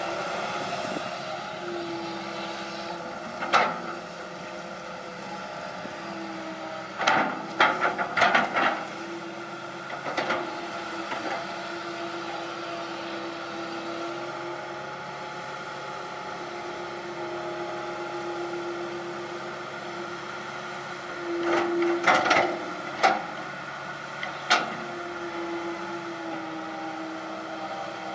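Komatsu PC160LC hydraulic excavator running steadily while it digs, its diesel engine and hydraulics humming throughout. Sharp metallic clanks and knocks from the bucket and arm are heard now and then, with a quick cluster of them about seven seconds in and another a little past twenty seconds.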